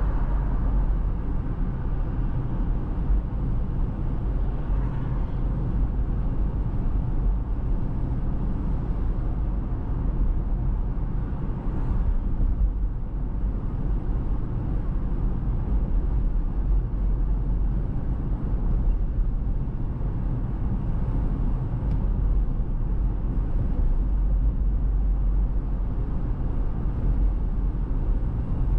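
Steady road noise of a car driving at a constant speed: an even, low tyre-and-engine rumble with no sharp events.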